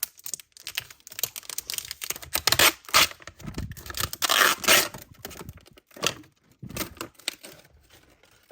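A standee's packaging being torn open and handled: a run of quick clicks and taps, with crinkling and tearing that is loudest in the middle.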